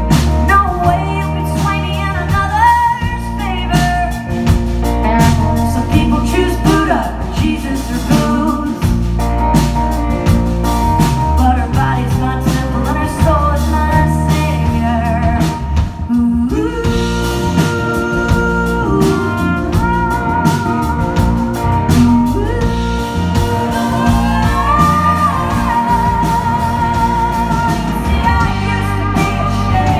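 Live rock band: a woman singing lead over electric guitar, electric bass and a drum kit, with a brief lull about halfway through before the next section of the song.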